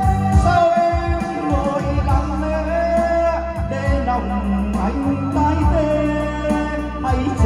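A man singing into a microphone over a karaoke backing track with heavy bass, played through a large PA speaker system.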